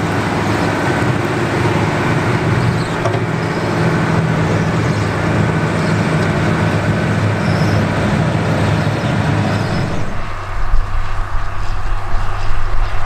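John Deere 4960 tractor's six-cylinder diesel working under load while the Kuhn Knight 8124 Slinger spreader flings manure, a steady, dense mechanical noise. About ten seconds in it changes to a Ford TW-35 tractor pulling a New Holland 195 spreader, a lower, uneven rumble.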